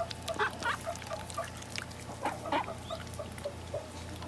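Mother duck and her newly hatched ducklings calling in the nest: a soft call repeated about three to four times a second, with a few louder calls and light rustling.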